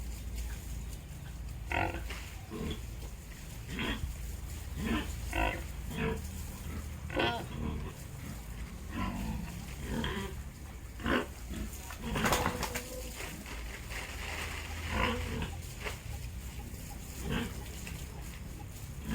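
Pig grunting and squealing in a string of short, separate calls, over a steady low rumble.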